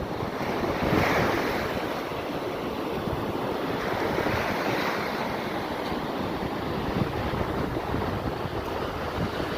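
Sea waves breaking and washing on the shore, with wind buffeting the microphone.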